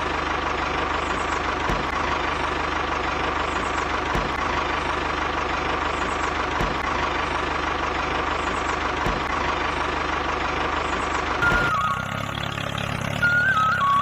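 Toy mini tractor running with a steady engine-like drone and a dull thud about every two and a half seconds. About twelve seconds in, the drone gives way to a few short electronic tones stepping up and down.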